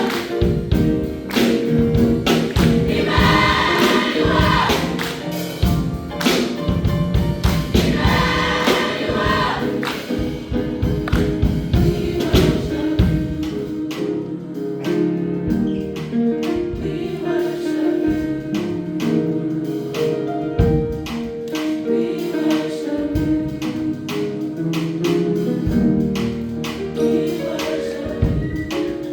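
A high school choir singing a gospel-style holiday song with a band and drums behind it. The voices are clearest in the first ten seconds, after which the band carries on with steady drum strikes.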